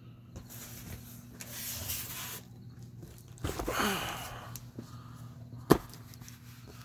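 Cardboard boxes and packing being handled: two stretches of rustling and scraping, then a single sharp knock a little before the end, over a steady low hum.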